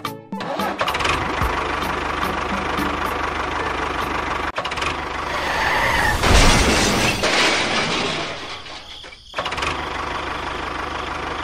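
An engine running steadily, growing louder around the middle, dropping away for a moment near the end and then picking up again.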